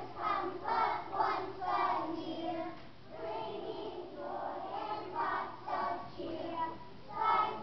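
A group of young children singing together as a choir, in phrases of a few notes each.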